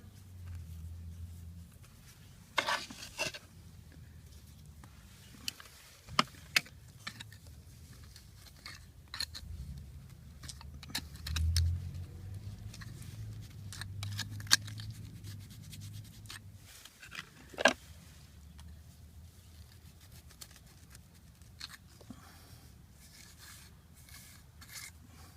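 Steel trowel scraping and tapping on mortar and brick while a loose foundation brick is reset: scattered short scrapes and clicks, with a few sharper taps.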